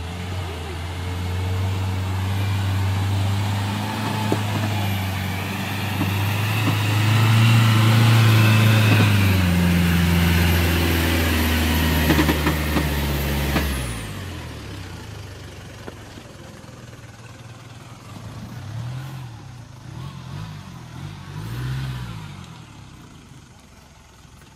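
A 4x4 SUV's engine working hard under load as it drives through deep mud close by, growing louder and holding high revs. About halfway through it drops sharply, and after that the engine is fainter, revving up and falling back a few times.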